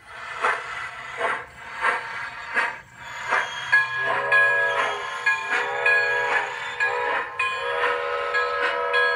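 Large-scale model steam locomotive, Sumpter Valley Railway No. 250, chuffing in a steady beat, then sounding a chime whistle in four blasts starting about four seconds in, the last one long.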